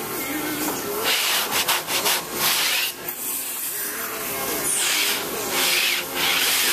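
Hands rubbing and sliding over plywood panels, wood scraping on wood in several short spells.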